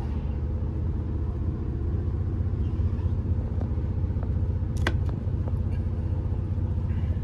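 Cabin rumble of a CrossCountry diesel multiple unit under way: the steady low drone of its underfloor diesel engine and running gear, with one brief sharp click about five seconds in.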